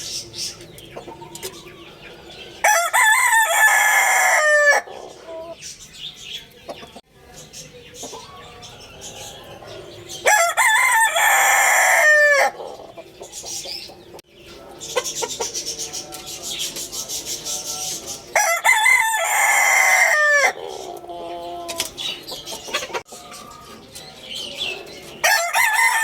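Rooster crowing four times, each crow about two seconds long and dropping in pitch at the end, roughly every seven to eight seconds, with quieter clucking in between.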